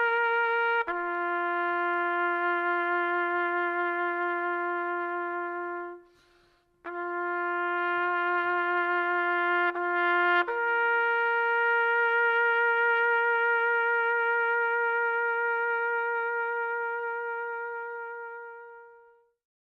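Background music: a slow line of a few long held notes in a brass-like tone, with a brief break about six seconds in and the last note fading out near the end.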